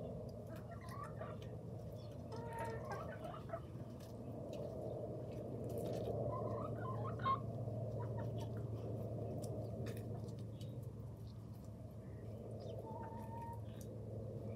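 A small flock of hens clucking softly while feeding, with short calls every few seconds over a steady low hum.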